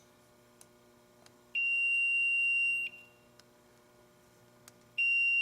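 Handheld voltage tester giving a steady high-pitched electronic beep twice: a beep of about a second and a half, then another starting near the end. It is the warning it gives for a live ('hot') circuit.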